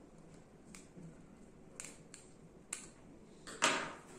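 Flat-blade screwdriver tightening the screw terminal on a BNC connector: a few small metallic ticks about a second apart, then a louder scrape about three and a half seconds in.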